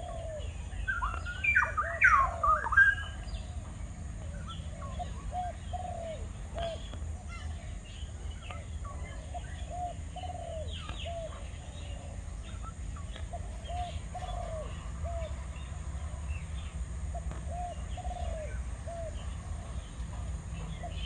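Spotted doves cooing: short arched coos repeated in groups throughout. A louder burst of higher chirping from another bird comes between about one and three seconds in.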